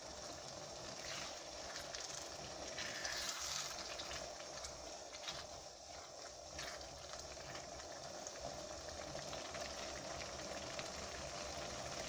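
Thick lentil curry bubbling and frying in a small saucepan while a silicone spatula stirs it, with a few soft scraping strokes against the pan.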